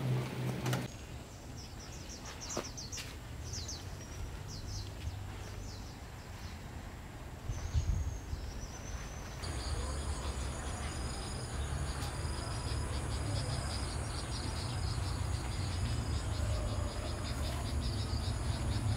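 Insects chirping: scattered short high chirps at first, then from about halfway through a steady, finely pulsing high-pitched drone, over a low rumble.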